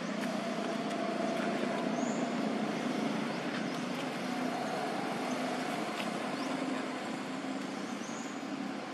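Steady outdoor background hum, with a few faint clicks and two short high chirps, about two seconds in and near the end.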